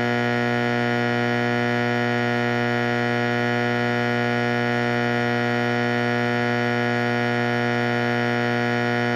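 Simplex 4050 120 V AC electromechanical fire alarm horn sounding during a test: a steady, unbroken buzz with a low hum and many overtones.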